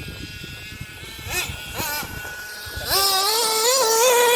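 Hobao Hyper 7 TQ's .21 three-port nitro engine being revved: two quick throttle blips that rise and fall in pitch, then from about three seconds in held at high revs with a high, wavering note that gets louder.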